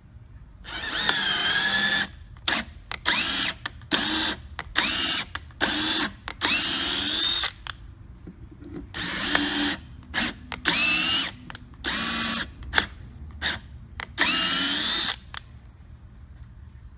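Cordless drill boring holes through a clear acrylic ring, run in a long series of trigger bursts, some a second or more and many brief pulses. The motor whine rises in pitch as each burst spins up.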